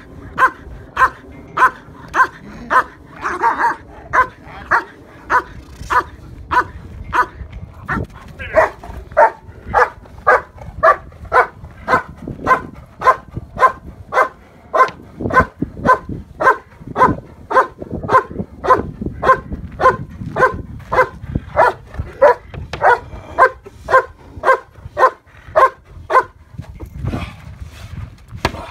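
German Shepherd barking steadily and rhythmically at a decoy, about two loud barks a second, as in a Schutzhund bark-and-hold at the blind. The barking stops shortly before the end.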